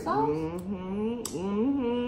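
A woman's voice, drawn out and sing-song, holding each pitch for about half a second at a time, with one sharp click from the mouth or hands near the middle.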